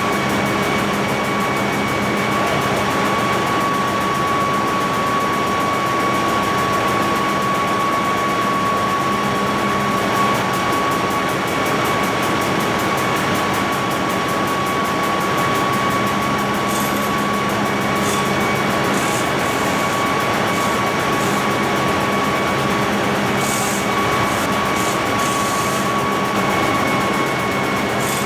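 Ship's engine-room machinery running: a loud, steady drone with a constant whine over it, and a few short hisses in the second half.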